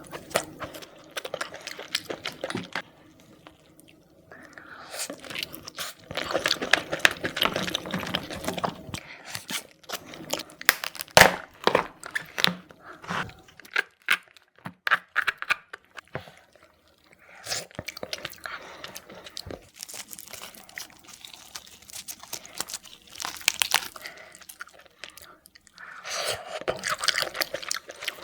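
Close-miked eating of seafood: crunching, cracking and chewing, full of sharp clicks, coming in several spells with short quieter gaps between them.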